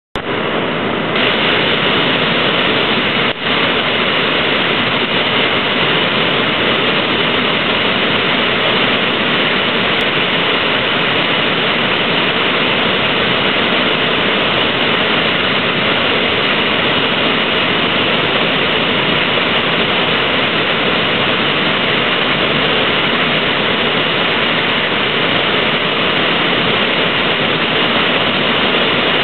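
Whitewater rushing through a river standing wave: a loud, steady, even noise of churning water with no break.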